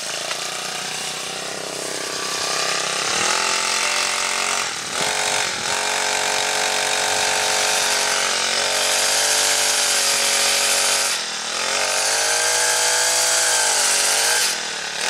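Small GX50-clone four-stroke engine of a knockoff Honda kombi trimmer running at high speed, its revs dropping briefly and picking back up about three times, around 3, 5 and 11 seconds in.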